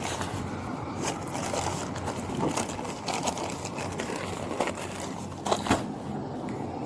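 Rustling and scraping of clothing against a body-worn camera's microphone, with scattered soft clicks and one louder knock about five and a half seconds in.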